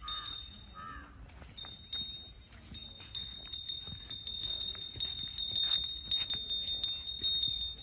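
A horse walking on a dirt path: soft hoof clops and the light jingling of its decorated tack, growing busier in the second half.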